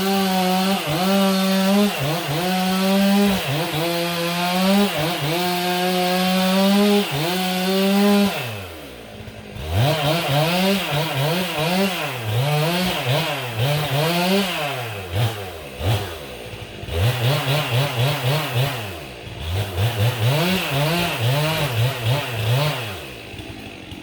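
Chainsaw running at full throttle, its pitch dipping slightly as it cuts wood. About eight seconds in it drops off, then is revved up and down again and again.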